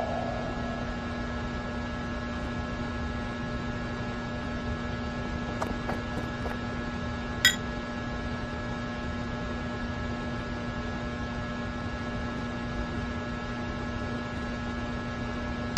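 Steady electrical hum with a constant low tone, broken by a few faint ticks and a single short click about seven and a half seconds in.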